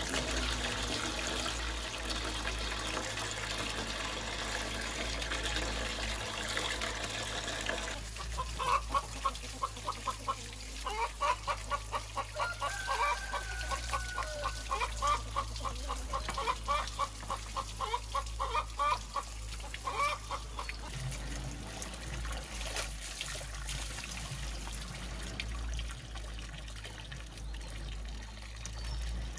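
Water running from a pipe and splashing over vegetables and into a metal basin as they are rinsed. Through the middle of the stretch, a chicken clucks in a quick, even run of about three clucks a second.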